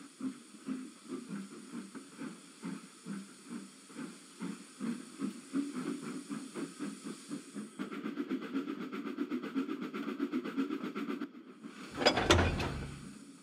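Miniature steam locomotive chuffing as it gets under way, a steady beat of short exhaust puffs that turns busier about eight seconds in. A brief louder blast comes near the end.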